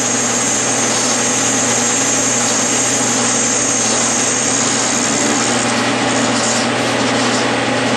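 Clausing metal lathe running at about 800 RPM while a hand-fed tool bit takes a roughing cut on a mild steel bar, turning a taper: a steady machine hum with a cutting hiss.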